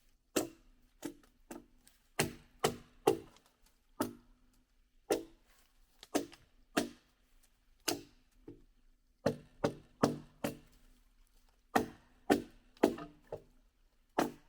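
Wood being chopped by hand: about twenty sharp, separate blows in irregular groups, each with a short ring.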